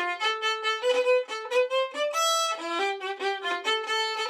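Solo violin playing a lively folk fiddle tune in double stops, bowing two strings at once in quick, detached notes.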